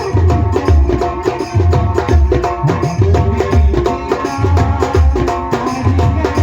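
Instrumental Indian film-song music: a melody over tabla-like hand drums and a steady low drum beat.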